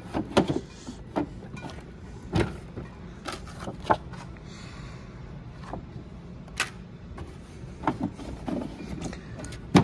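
Red plastic Mac Tools tap set case being handled: its latches snapping, the lid opening and being shut, heard as scattered clicks and knocks over a steady low hum, with the loudest knock at the end.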